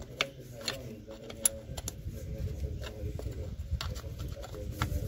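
Scattered light metal-on-plastic clicks and taps from a small screwdriver working at the plastic air-line fitting on top of an air spring, over a low background rumble.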